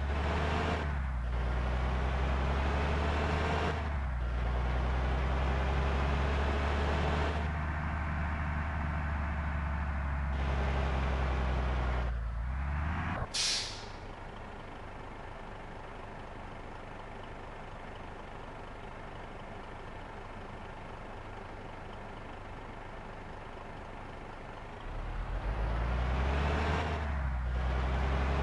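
Large diesel bus engine running loud and low with its pitch rising and falling, then a short sharp air-brake hiss about thirteen seconds in, after which the engine settles to a quieter idle. Near the end it revs up again.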